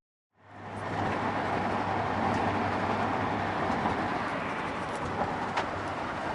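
Steady rumbling noise of a moving vehicle, with a low hum and a few faint clicks, fading in about half a second in.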